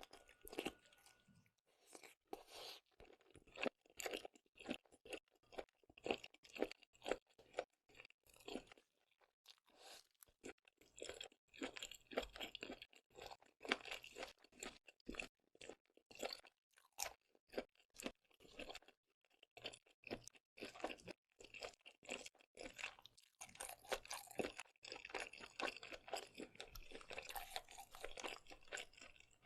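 Close-miked chewing of seafood: a dense run of short, quick mouth clicks, with brief pauses about nine and nineteen seconds in.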